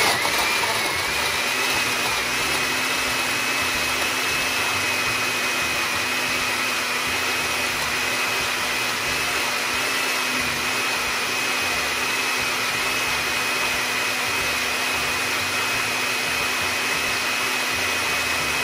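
Countertop blender with a glass jar running steadily, blending frozen blackberries and milk. Its motor whine rises briefly as it spins up at the start, then holds at one even pitch.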